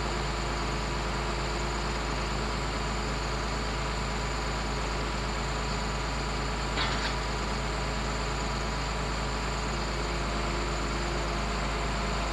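Heavy diesel engine idling steadily, with a short faint knock about seven seconds in.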